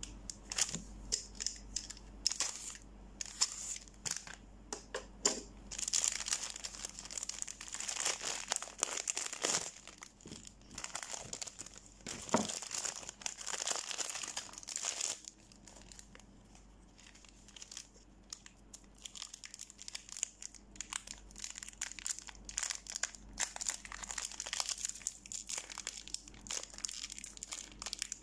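Soap wrappers of thin plastic film crinkling and tearing as bars of soap are unwrapped by hand, in dense crackling stretches with a quieter spell a little past the middle.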